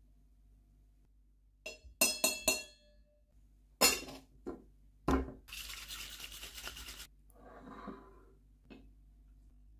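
Metal cobbler cocktail shaker: a quick run of ringing clinks, then loud clanks as the cap goes on, then ice rattling hard inside the shaker for about a second and a half as it is shaken. Near the end a stemmed martini glass is set down with a light click.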